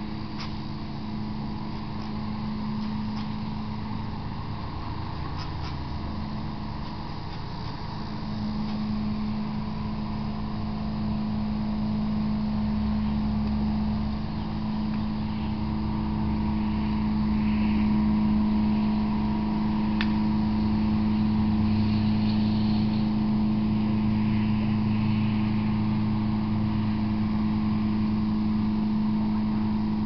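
A steady mechanical hum at one constant pitch, like a motor or engine running. It gets somewhat louder about eight seconds in.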